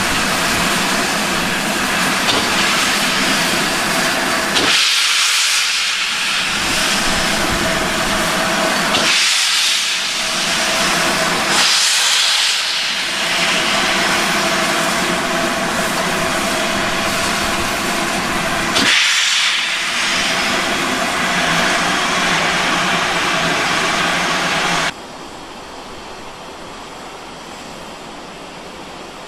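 GWR green steam locomotive standing with steam hissing loudly from low at its front end, around the cylinders, swelling into louder surges four times. About 25 seconds in it cuts off abruptly to a much quieter, steady windy rush.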